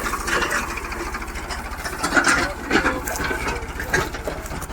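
Farmtrac 6055 tractor's diesel engine running steadily, with irregular mechanical clatter and a few knocks over it.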